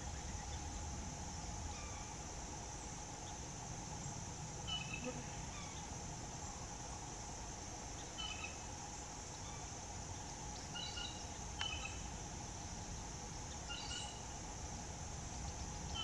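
Steady high-pitched insect chorus, with short bird calls about every three seconds and one sharp click near the middle.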